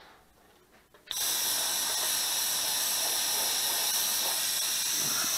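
Airbrush spraying paint: a steady hiss of air that starts suddenly about a second in and stops sharply.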